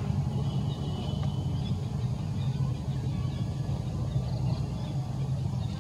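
Steady low engine rumble, like a motor vehicle running nearby, with a faint thin high tone briefly in the first couple of seconds.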